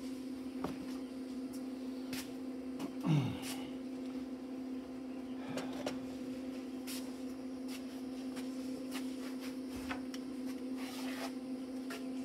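Steady hum throughout, with scattered light knocks and a brief falling squeak about three seconds in as the metal bracket is handled and set up.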